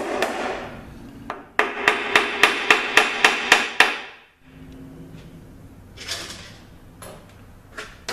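Hammer tapping the channel plate of a Ford AX4N transaxle to break it loose from the case. Each strike rings. After a brief pause about a second in, a quick run of about ten taps follows at about four a second, then fainter knocks and handling noise.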